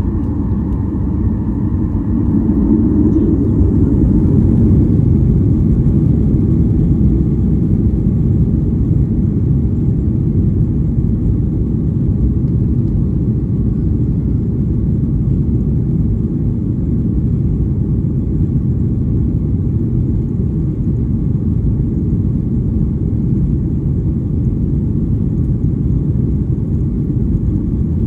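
Cabin noise of a Boeing 737-800 heard from a window seat: a steady, loud, low rumble of its CFM56 jet engines and airflow, swelling slightly a few seconds in.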